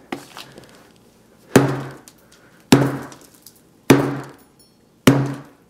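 Hammer striking a Samsung Galaxy S6 Edge's already shattered glass screen four times, about once every second, each blow a sharp crack with a brief low ring. A lighter knock comes just before the first blow.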